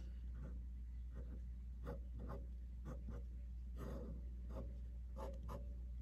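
Fine-tip ink pen scratching on paper labels in short, irregular strokes while sketching, over a low steady hum.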